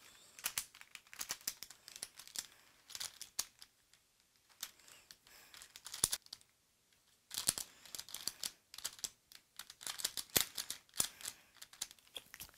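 A carbon-fibre pyraminx puzzle being turned by hand while it is solved: runs of quick plastic clicks and clacks as its faces and tips are twisted, broken by short pauses.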